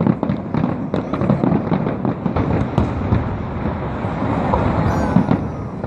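Aerial fireworks shells bursting in quick succession, a dense run of overlapping bangs with no break.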